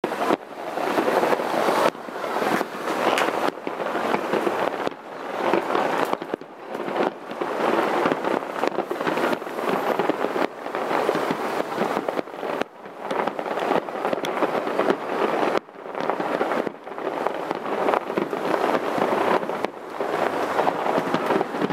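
Aerial fireworks shells bursting in the distance, a dense, continuous barrage of bangs and crackling with a few brief sudden dips in loudness.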